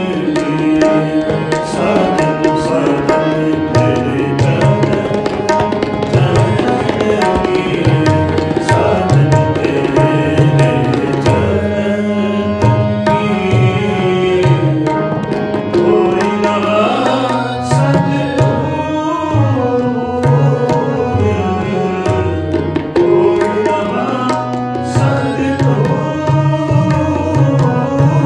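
Shabad kirtan, Sikh devotional music: tabla playing steadily over sustained harmonium-like tones.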